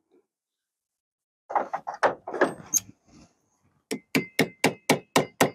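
Metal clattering as locking pliers are worked on a battery cable clamp. Then, from about 4 seconds in, the pliers are used as a hammer, tapping the stuck clamp on the battery post in quick even strikes, about four a second, each with a faint metallic ring.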